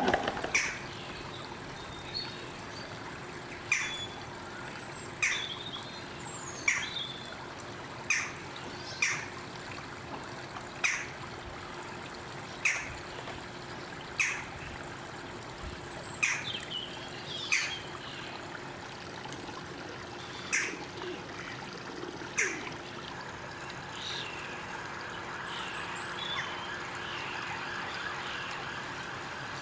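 A bird gives a short, sharp call every one to two seconds, over a steady trickle of running stream water, with other birds chirping in between.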